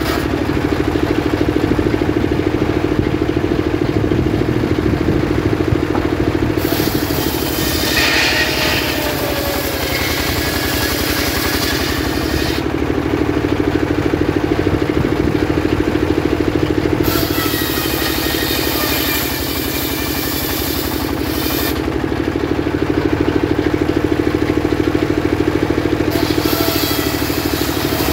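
Engine-driven circular sawmill running steadily while its spinning blade cuts through a log, the cutting noise coming in three stretches: from about a quarter of the way in to near the middle, again past the middle, and near the end.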